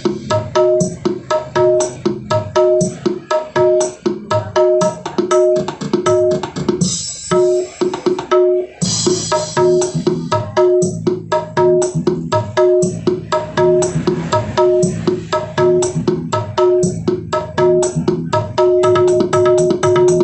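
A song with a fast, steady drum beat and plucked strings, played through a two-way speaker with an 8-inch woofer and a horn-loaded tweeter during a sound check.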